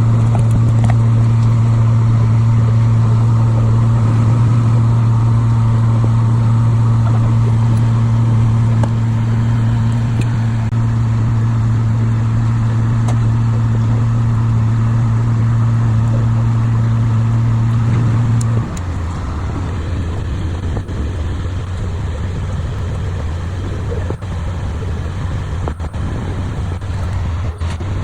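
Steady low machine hum with a clear pitch that drops abruptly in level and slightly in pitch about two-thirds of the way through, then carries on more weakly.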